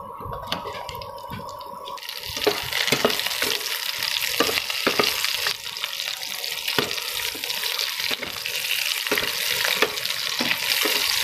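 Chunks of red onion frying in hot oil in a steel kadai, sizzling from about two seconds in, while a metal spatula stirs them and scrapes and clicks against the pan many times.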